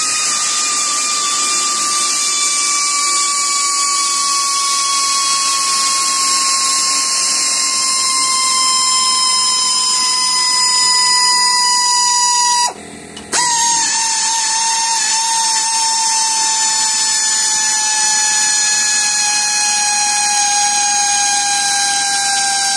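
Cordless ratchet running a nut down a leaf-spring U-bolt: a steady motor whine whose pitch slowly falls, with one short stop a little past halfway.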